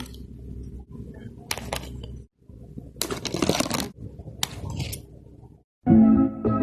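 Doll packaging being handled and opened: several short scraping, rustling noises over a low hum. Guitar music starts near the end.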